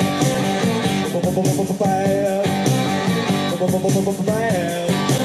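Rock song with guitar and a singing voice, played loud through a homemade ammo-box Bluetooth speaker with 6.5-inch Polk marine speakers and a 300-watt amplifier.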